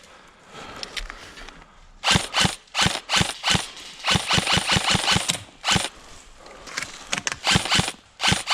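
Airsoft guns firing a rapid run of sharp shots, starting about two seconds in and lasting about three seconds, with a few more single shots near the end.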